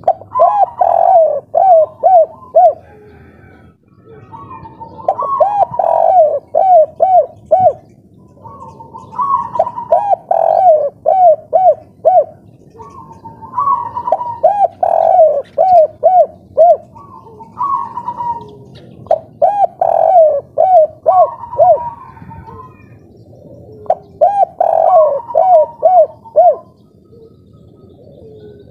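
Spotted dove cooing its 'kuk 3' song: about six phrases a few seconds apart. Each phrase is a soft opening note followed by a quick run of four or five loud, arching coos.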